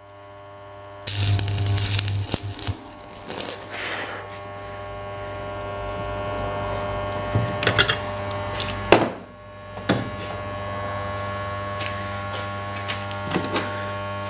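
Electric welding machine humming steadily, with a crackling burst of arc of about a second near the start and several shorter ones later, as tack welds are struck on a Derbi Variant moped's steel exhaust silencer. The tacks are catching poorly on the brass-coloured alloy.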